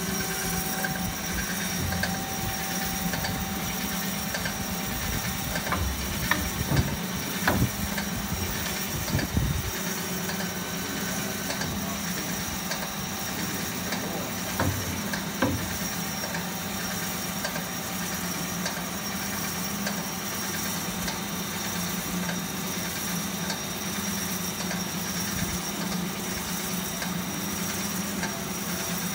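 Hyd-Mech S23A horizontal bandsaw running with a steady motor hum and a thin high whine. A few sharp metallic knocks come a quarter of the way in and again about halfway.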